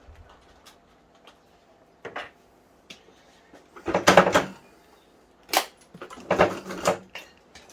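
Metal clanking and rattling from an exercise bike being taken apart with hand tools. A few light clicks come first, then a loud clatter about four seconds in, a sharp knock, and a second run of clattering knocks around six to seven seconds in.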